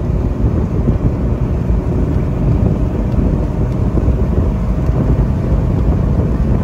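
2006 Jeep Wrangler's 4.0-litre straight-six pulling steadily at highway speed, around 2,500 to 3,000 rpm, heard from inside the cabin. Its cut exhaust gives a loud, low, steady rumble, mixed with road and wind noise.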